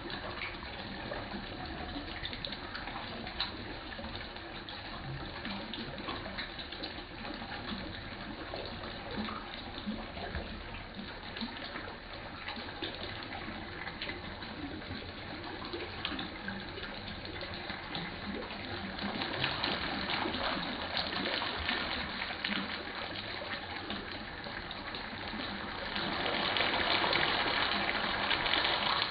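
Steady splashing and trickling of water running into a small fish pond. It grows louder about three seconds from the end, as feed pellets are scattered onto the surface.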